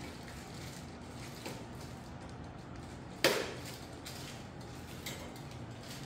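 A single sharp metallic clank with a short ring about halfway through, and a few lighter clicks before and after, as tools and parts of a folding electric bike are handled.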